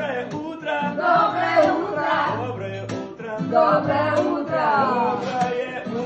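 A man singing to a strummed acoustic guitar, his voice sliding through long, drawn-out notes.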